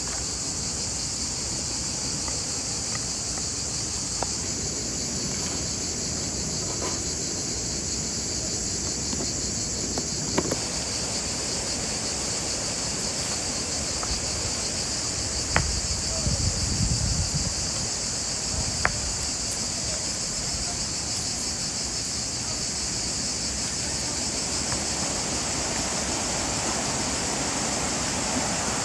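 A steady, high-pitched chorus of insects chirping without a break. A few sharp clicks sound over it, and there is a brief low rumble about sixteen seconds in.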